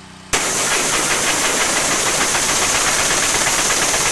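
Power Stroke 3200 PSI gas pressure washer: its engine running, then about a third of a second in the spray opens up and a loud, steady hiss of high-pressure water starts over the engine.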